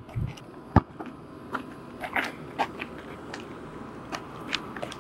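A basketball bouncing on an asphalt court: one sharp bounce about a second in, then scattered lighter taps and sneaker scuffs on the pavement.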